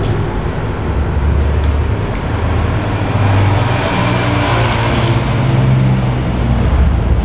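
A steady low mechanical rumble with handling noise throughout. About two-thirds of the way through there is one sharp click as a power plug is pushed into a power strip.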